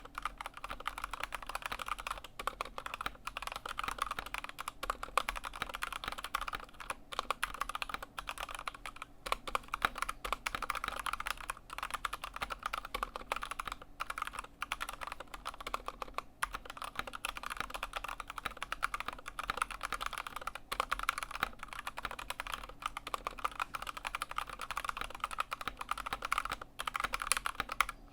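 Continuous fast typing on an Anne Pro 2 mechanical keyboard with stock Kailh Box Red linear switches, a dense stream of key clicks and clacks with brief pauses.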